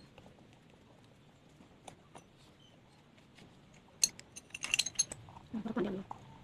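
A quick burst of sharp metallic clinks and rattling about four seconds in, followed by a short, duller clatter, as small metal parts or tools are handled.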